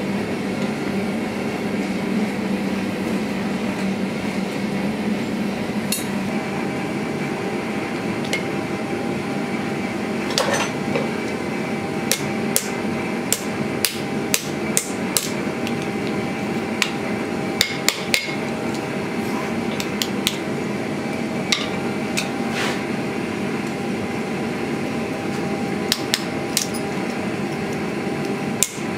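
Hand hammer striking a red-hot piece of steel on an anvil: sharp, irregular blows, sometimes in quick bunches, starting about twelve seconds in. Under them runs a steady roar from the propane gas forge.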